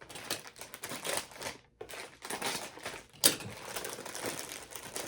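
Plastic snack-bar wrapper crinkling and crackling as it is handled and opened, with one sharp crack about three seconds in.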